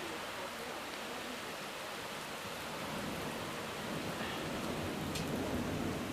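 Very hard rain pouring steadily in a severe thunderstorm with high winds.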